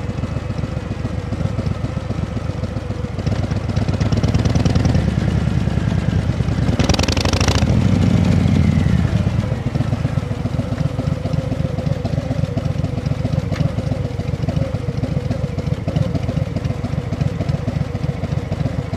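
An engine running, with a steady pulsing beat; it grows louder about four seconds in and settles back near nine seconds, with a brief hissing burst about seven seconds in.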